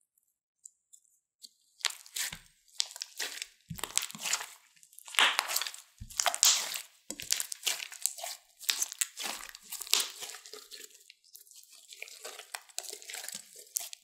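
Glossy slime mixed with lipstick and powder makeup being squeezed and kneaded by hand: wet squishing and crackling in repeated irregular bursts, starting about two seconds in.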